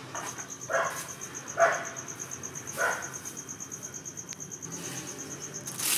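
Crickets chirping in a steady high trill of about ten pulses a second, which stops shortly before the end. A dog barks three times over it in the first half.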